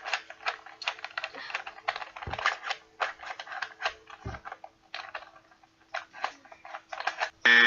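Rubik's cube being twisted rapidly: a dense run of plastic clicks and clacks as the layers turn, easing to a short lull about five seconds in before picking up again.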